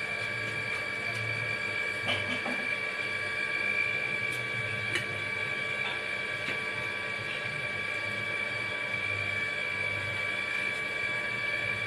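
A steady high-pitched whine over a low, wavering hum, with a few faint clicks about two and five seconds in.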